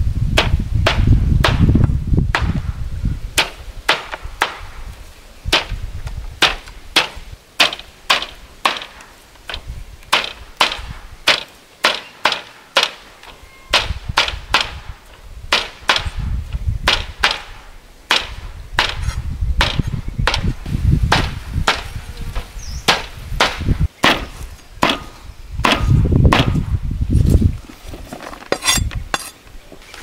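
Machete chopping a pile of fresh green herbs in a woven bamboo tray: a long, steady series of sharp chops, roughly one to two a second, as the blade cuts through the leaves onto the tray.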